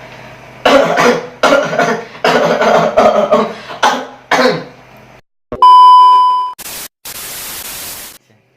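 A person coughing over and over, about half a dozen coughs in four seconds. Then a loud steady beep about a second long, followed by about a second of even hiss like TV static.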